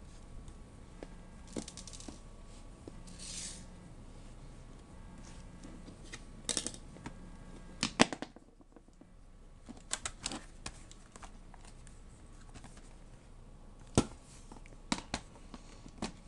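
Scattered clicks and light knocks of plastic laptop parts being handled and fitted back together during reassembly, with a few short scraping sounds in the first few seconds and two sharper clicks about eight and fourteen seconds in.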